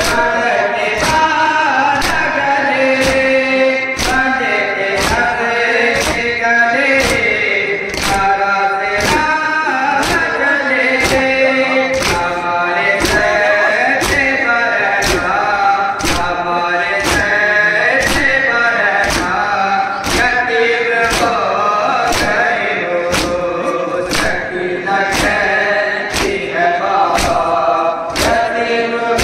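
Men's voices chanting a noha together, with sharp, evenly spaced beats a little more than once a second: matam, the rhythmic beating of chests in mourning.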